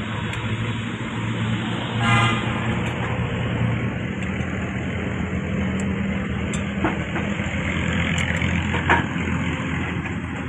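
A motor vehicle's engine running steadily, with a short horn toot about two seconds in.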